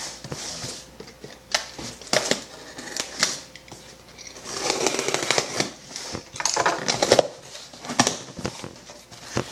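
Small cardboard shipping box being pried open by hand: irregular scraping, rustling and tearing of cardboard, with sharp clicks and taps, busiest in two stretches about halfway through.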